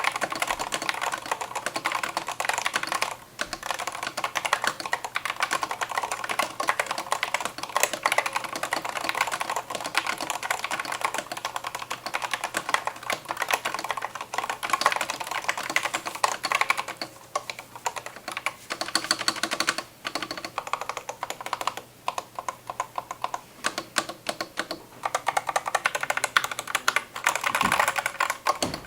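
Corsair K100 mechanical keyboard being typed on fast and continuously, a dense run of key clicks with a few short pauses. Picked up through a headphone microphone.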